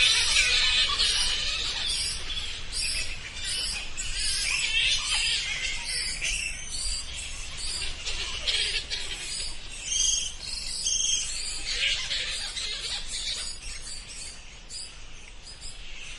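Bats squeaking: a dense chatter of many short, high-pitched squeaks and chirps, thinning out and getting quieter toward the end.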